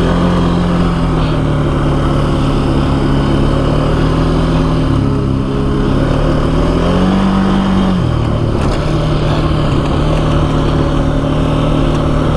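ATV engine running while riding, its pitch rising about seven seconds in and dropping back a second later.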